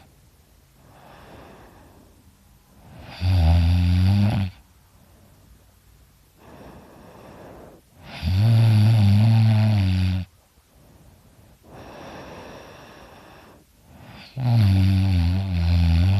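A sleeping person snoring very loud: three long snores about five seconds apart, each lasting one to two and a half seconds, with faint breaths in between.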